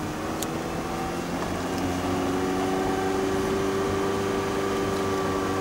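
Ferrari's rear-mounted engine heard from inside the cabin, pulling as the car accelerates down the track: its note climbs slightly over the first couple of seconds, then holds steady and a little louder.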